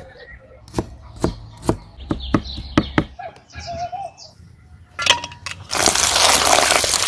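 A knife cuts through a tomato onto a wooden board in a handful of sharp taps. About two-thirds of the way through, water starts pouring into a metal bowl of sliced eggplant, a loud steady rush that is the loudest sound here.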